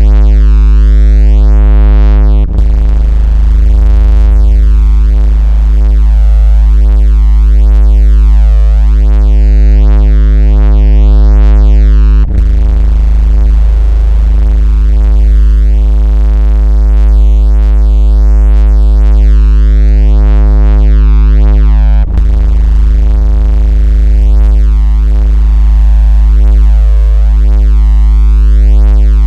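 Steady, very loud 56 Hz synthetic tone, a deep buzz with a stack of overtones above it, played as a phone-vibration, bass-test and speaker water-ejection sound. A short click with a slight dip in level breaks it three times, about every ten seconds.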